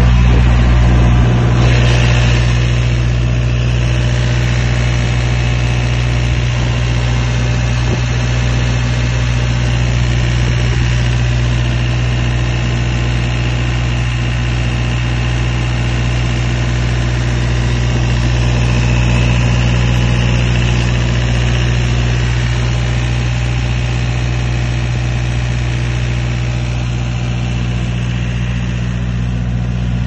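The diesel engine of a refrigerated trailer's fridge unit running steadily at an even speed, heard with the unit's engine-bay panels open.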